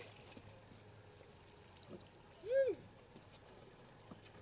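A short, high-pitched whoop from a voice, rising and falling, a little past halfway, over a low steady hum and faint background noise.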